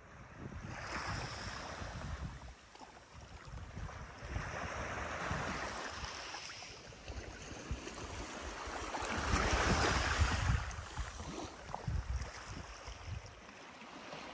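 Small sea waves breaking and washing in, three swells of surf a few seconds apart, the last the loudest, with wind rumbling on the microphone.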